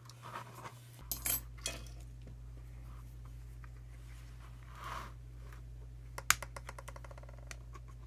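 Small clicks, scrapes and taps of hand tools and plastic and metal tablet parts as the circuit board is worked loose, with a quick run of small ticks near the end. A steady low hum sets in about a second in.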